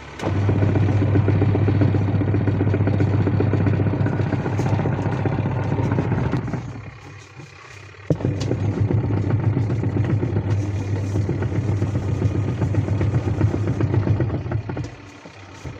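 Semi-automatic washing machine's wash motor and gearbox running, with a steady low hum. It stops for about a second and a half near the middle, then starts again. No gearbox noise is heard: the wash-side fault has been fixed.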